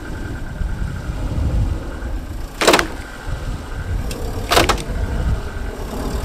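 A car engine running as the car backs up against a chain anchored to a tree, with two sharp bangs, about two seconds apart, as the chain snaps taut and jerks on the bent front frame cross member to pull it straight.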